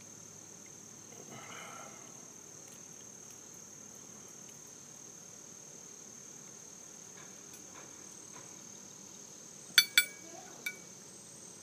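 Steady high-pitched insect trill, like crickets. About ten seconds in come two sharp metallic clinks in quick succession, with a softer third just after.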